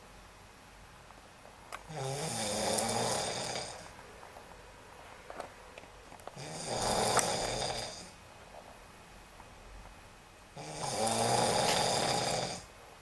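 A person asleep in bed snoring: three long snores, each about two seconds, coming roughly every four and a half seconds with quiet gaps between.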